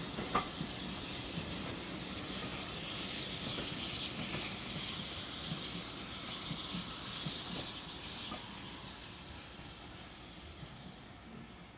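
Steam train pulling away: a steady hiss of steam from the locomotive with light clatter of the coach wheels, fading as the train draws off.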